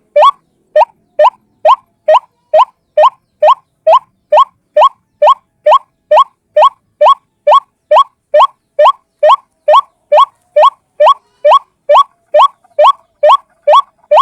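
White-breasted waterhen (ruak-ruak) calling: a fast, even series of short rising notes, about two a second.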